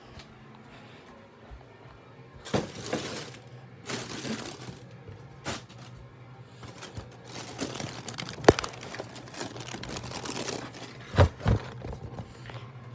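Handling noise from a phone being moved and covered: irregular rustles, scrapes and knocks, with a sharp knock about eight and a half seconds in and two thumps about eleven seconds in.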